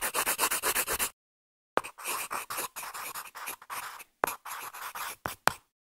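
Sketching strokes scratching on paper: quick and even, about eight a second, stopping about a second in; after a short silence, looser, irregular scratching picks up again with a few sharp taps.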